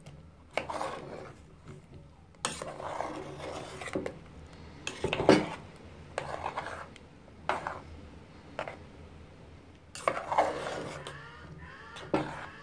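A spoon scraping and knocking against the side of a metal cooking pot while sweet potato chunks are stirred in a thick sauce. The strokes come as repeated rasping scrapes about a second apart, the loudest about five seconds in.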